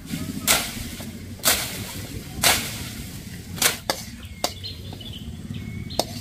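A blade chopping into a bamboo clump: three sharp chops about a second apart, then a few lighter knocks.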